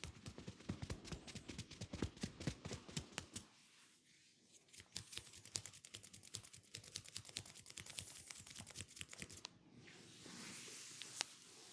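Close-miked hand massage sounds: dense, rapid crackling and tapping of hands and fingers working over skin and hair, with soft low thumps in the first few seconds, then a smooth rubbing hiss near the end.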